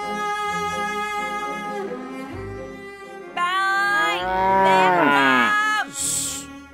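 Soft cello-led lullaby music, then about three and a half seconds in a boy's loud, drawn-out shout mixed with cows mooing, lasting about two and a half seconds. A short hissing "shh" near the end.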